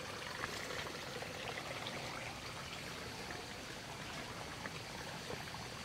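Steady rush of running water from a small stream.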